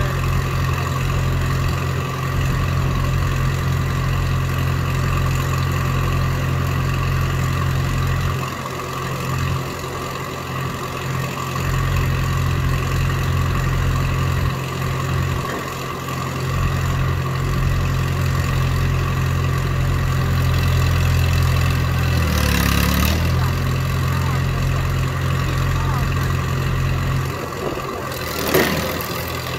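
Engine of a tracked log splitter running steadily, its note shifting briefly a little over twenty seconds in. Two short crackling noises cut through it, the louder one near the end.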